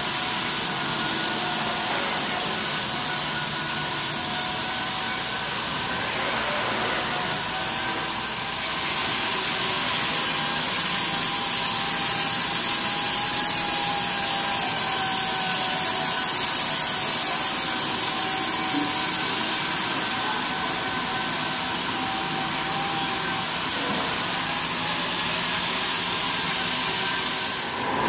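Steady hiss and whine of shop machinery running continuously, with a few steady hums under it; a little louder in the middle.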